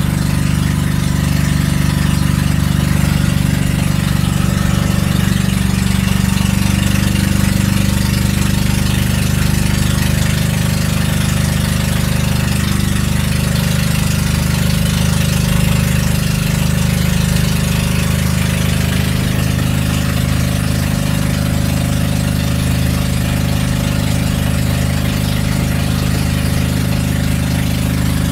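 Motorised outrigger boat (bangka) engine running steadily under way, a loud, even drone.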